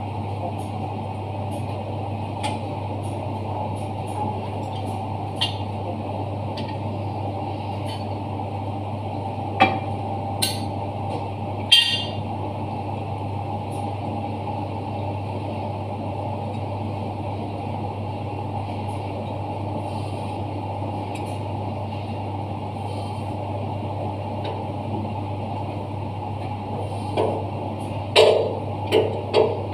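Steady machinery hum, broken by a few sharp metallic clanks and knocks from hands and tools at work inside a dry-cleaning machine, three around ten to twelve seconds in and a quick cluster near the end.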